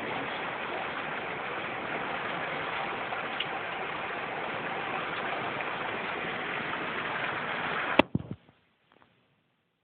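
Heavy rain pouring down in a steady hiss. About eight seconds in comes a sharp click and a couple of knocks, then the sound drops to near silence.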